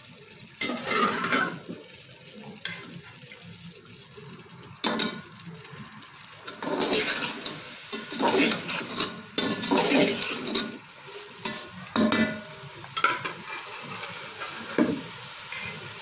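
Spoon stirring boiled chickpeas through sizzling onion masala in a metal cooking pot: irregular scraping and clattering strokes over a low sizzle, coming thickest through the middle.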